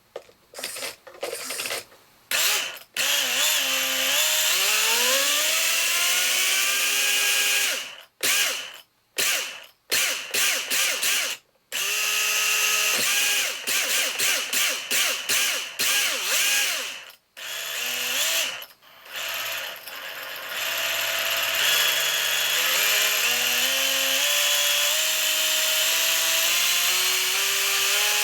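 Radio-control car's brushless motor and drivetrain whirring under throttle, in a series of short blips and longer runs, its whine gliding up in pitch as it speeds up and climbing slowly over the last several seconds. The owner suspects the noise is abnormal, possibly an initial defect.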